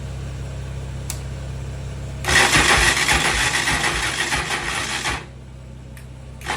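Honda TRX450ER's electric starter cranking its single-cylinder four-stroke engine for about three seconds, a rough churning with irregular thumps, then stopping; this is the quad's hard start. A sharp click near the end.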